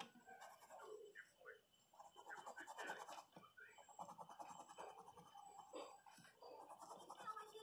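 Faint scratching of a coloured pencil shading on paper in short, repeated strokes.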